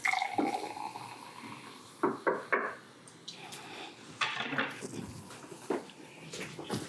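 Champagne poured into glass flutes, with a brief ringing clink of glass at the start, then sharp clinks and knocks of the bottle and glasses on a table: three quick ones about two seconds in and a few more after four seconds.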